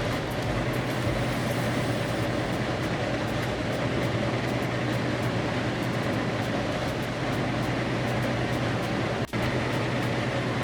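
LG air conditioner fan running steadily after its broken centre shaft was repaired: a constant rush of air over a low hum, with the rattling almost gone. The sound drops out for an instant about nine seconds in.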